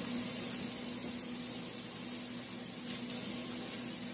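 Kitchen faucet running, a steady stream of water splashing into a stainless steel sink as hands are washed under it.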